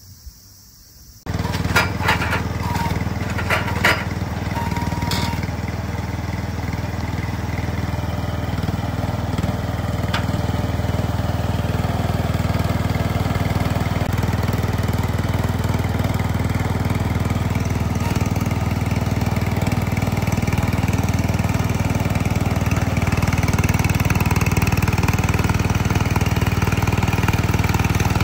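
Engine of a Sasaki NU425 ride-on garlic planter running steadily as the machine drives on its rubber crawler tracks. It cuts in abruptly about a second in, with a few sharp knocks and clatters in the first few seconds, and grows a little louder near the end.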